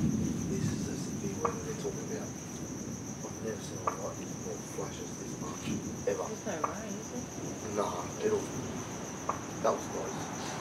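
Insects chirring steadily in a high, even tone through a stormy night, over a low rumble of distant thunder that fades during the first second or so. A few faint short ticks are scattered throughout.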